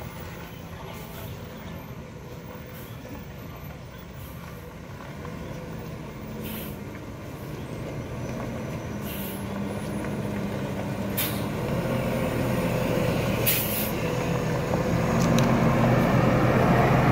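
Heavy diesel truck engine running and growing steadily louder as it comes closer, with several short air-brake hisses at intervals.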